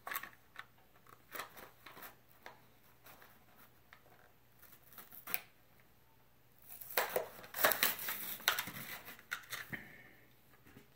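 Toy car blister-card package being opened by hand: scattered clicks and handling noises, then about three seconds of dense plastic crinkling and cardboard tearing starting around seven seconds in.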